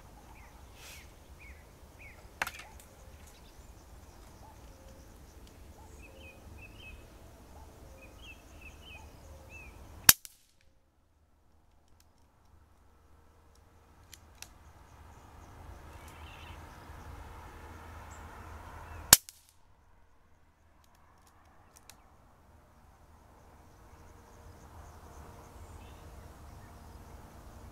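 KalibrGun Cricket .22 PCP air rifle firing two single shots, each a sharp crack, about nine seconds apart.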